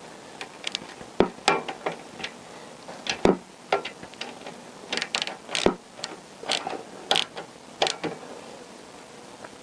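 Small socket ratchet clicking in short, irregular runs as it winds in the bottom rear shock mount bolt on a Honda CBR1000F, with the odd metallic tick of the tool against the mount.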